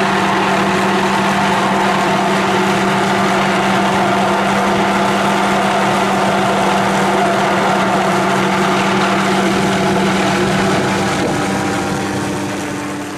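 Helicopter hovering overhead on a long line: steady engine and rotor noise with a constant low hum, fading out near the end.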